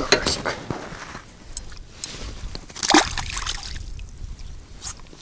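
Shallow lake water splashing and sloshing as a mesh keepnet is handled in it to put a freshly caught crucian carp inside; a louder splash comes about three seconds in.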